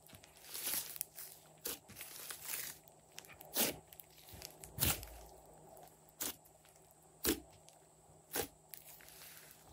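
Hands squeezing and kneading a large mound of slime: a soft crackle broken by sharp pops at irregular intervals, about seven in all.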